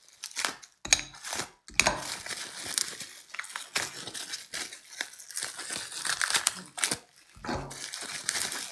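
Clear plastic wrapping crinkling and rustling in irregular bursts as gloved hands pull it off a stack of coins, with a few soft handling thumps.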